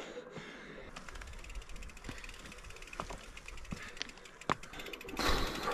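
Mountain bike rear-hub freewheel ticking rapidly as the bike is pushed uphill, with a few sharper knocks of feet or stones on the trail. A louder rush of noise comes in near the end.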